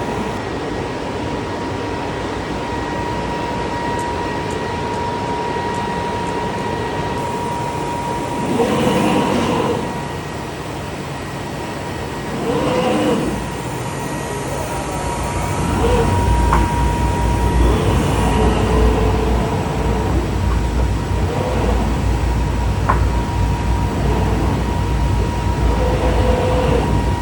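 Glass-cutting CNC machine running with a steady high whine over machine noise. It grows louder twice in the first half, and a low rumble joins a little past the middle.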